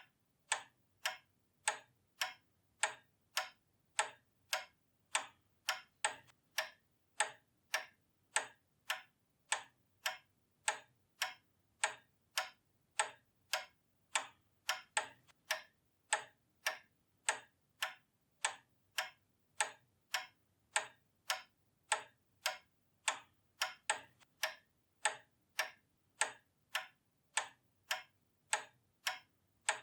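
Pendulum clock ticking steadily, a little under two even ticks a second.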